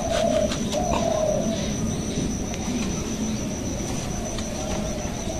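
A dove cooing, a low wavering call strongest in the first second or so and fainter after, over a steady thin high-pitched tone.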